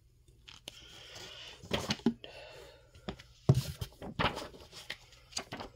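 Comic books being handled in a cardboard box: a soft rustle of paper with several sharp taps and knocks, the loudest about halfway through.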